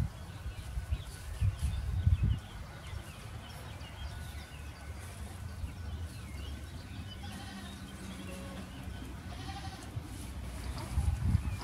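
Goat bleating faintly a few times, with low rumbling bumps on the microphone about two seconds in and again near the end.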